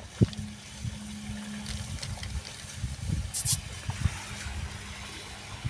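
Low steady background rumble with a sharp click just after the start, a few soft knocks, and one short crinkling hiss a little past halfway, as spice powder is tapped out of a paper packet onto a steel plate.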